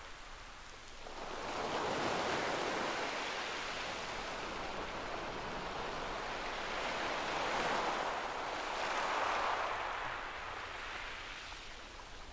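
Sea waves washing on the beach: a steady rush of surf that swells about a second in and again more strongly around eight to ten seconds, then eases off near the end.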